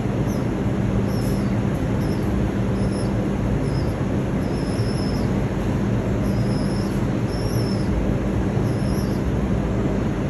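Steady rumble of a subway station, with short high-pitched squeals coming and going over it.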